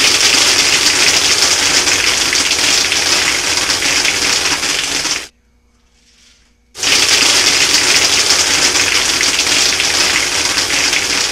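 Homemade soda-bottle airsoft machine gun firing in two long bursts of about five seconds each, with a break of about a second and a half between them: a loud rush of compressed air from the air-compressor blowgun driving a continuous stream of airsoft pellets out of the brake-line barrel, with a fast grainy rattle of pellets through it.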